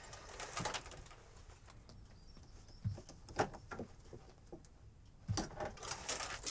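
Rummaging in a low wooden cupboard: scattered knocks, clicks and rustles of things being shifted, with louder ones about three and a half seconds in and a cluster near the end.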